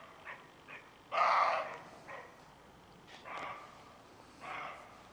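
Roe deer barking in a field: a string of short, harsh barks every second or so, the loudest about a second in.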